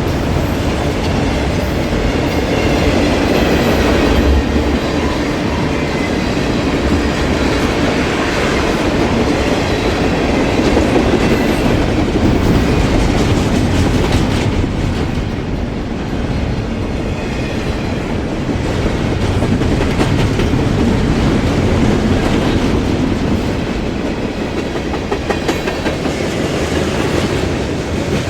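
Freight train rolling past, its wheels clattering steadily over the rail joints.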